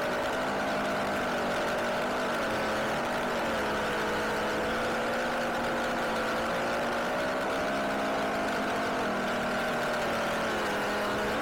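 Steady mechanical drone from an engine or motor, its pitch drifting slightly up and down.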